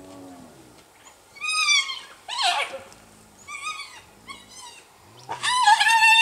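Spotted hyenas squabbling at a carcass: several short, high, wavering whining and giggling calls, then a longer held call near the end, with a faint low growl underneath.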